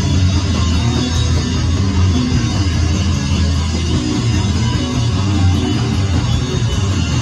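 Live rock band playing loud, with drums and guitars over a heavy bass.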